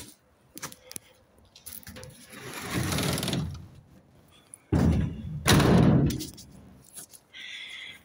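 Thuds and rattling from a metal roller shutter being handled, with two loud bumps about five seconds in, then a short squeak near the end as a metal gate swings open.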